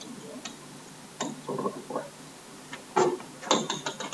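A few short clicks of a pen stylus on a writing tablet, clustered about three seconds in, with a faint brief murmur of breath or voice about a second and a half in.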